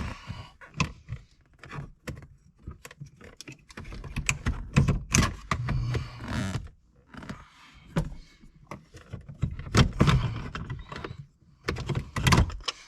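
Irregular plastic and metal clicks, knocks and rattles, with a few heavier thuds, as the shift lever and its plastic bracket base are flexed and pried out of the console; the bracket's rear locking tab snaps in the process.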